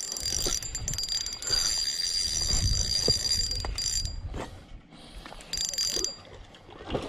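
Spinning fishing reel being cranked to reel in line, its gears giving a steady high whine that stops about four seconds in and comes back briefly around five and a half seconds.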